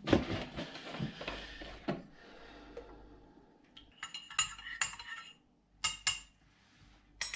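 Rustling handling noise, then several sharp metallic clinks with a brief ring, in two or three clusters in the second half.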